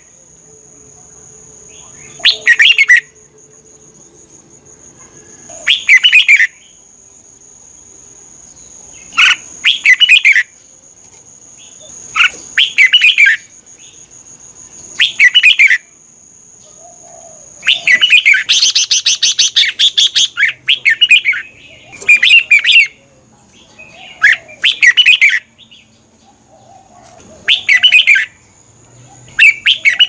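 Red-whiskered bulbul singing: short, loud whistled phrases repeated every few seconds, with one longer, denser run of notes about two-thirds of the way through.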